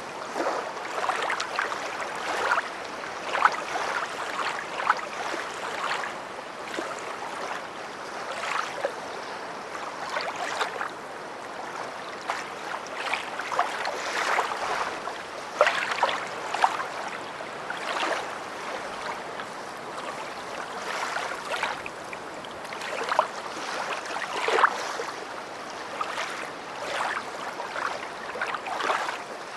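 Small lake waves lapping and splashing against the shore, a continuous wash broken by frequent irregular little slaps of water.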